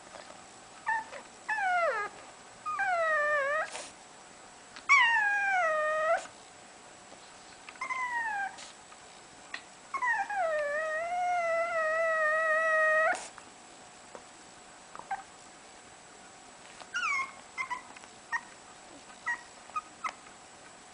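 Dog whining: a series of high, drawn-out whimpers that slide down in pitch, the longest about three seconds, followed near the end by a few short, quieter whimpers.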